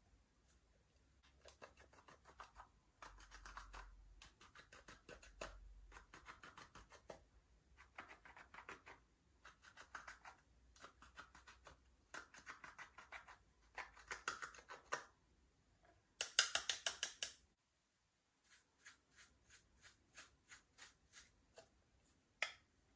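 Slime being squished and kneaded by hand: runs of rapid sticky clicks and pops in bursts of a second or so. The loudest crackling burst comes about two-thirds of the way through, followed by slower single pops near the end.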